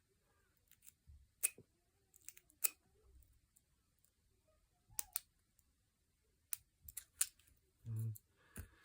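Scattered light metallic clicks from a McTickler lock pick and tension tool working the pins inside a Master Lock 150 padlock, about ten sharp clicks at uneven intervals.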